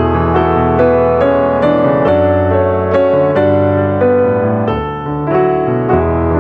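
Background piano music: a gentle melody of steadily struck notes over held bass notes that change every second or so.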